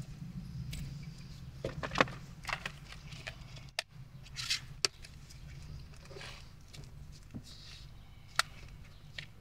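Rustling and sharp clicks from a bag and small objects being handled on a lap, the loudest clicks about two seconds in and again near the end, over a steady low hum.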